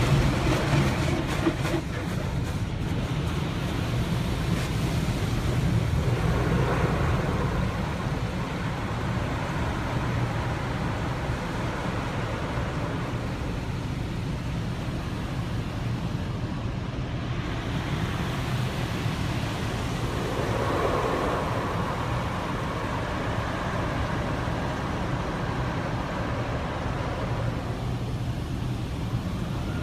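Automatic car wash machinery running, heard from inside the car's cabin: a steady low rumble and rush that swells briefly about six seconds in and again about twenty seconds in.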